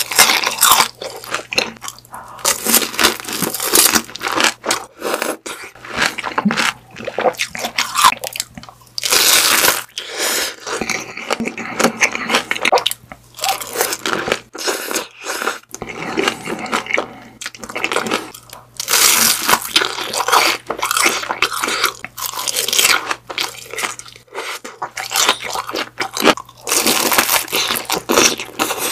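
Close-miked eating of crispy grilled daechang (beef large intestine): repeated crunching bites and chewing, in uneven clusters with a few louder stretches of crunching.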